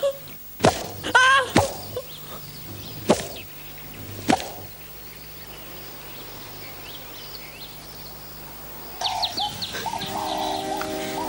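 Four whip lashes landing on a person in the first few seconds, each a sharp crack, with a short pained cry after the first. Near the end, soft music begins with birds chirping.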